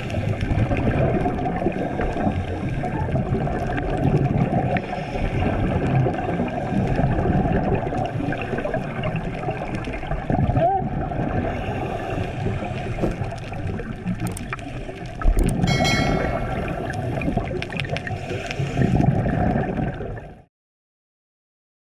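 Underwater sound picked up by a camera in its housing: a steady muffled rush and gurgling of water and a scuba diver's exhaled bubbles. About two-thirds through there is a sudden knock followed by a quick run of fine ticks. The sound cuts off suddenly near the end.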